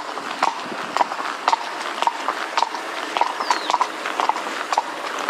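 Highland pony's hooves clip-clopping in a steady beat, about two sharp strikes a second with lighter ones in between.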